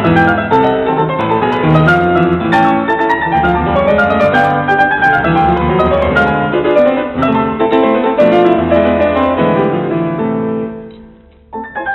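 Instrumental background music led by piano, playing a steady run of notes. It fades out about ten and a half seconds in and a new phrase starts abruptly just before the end.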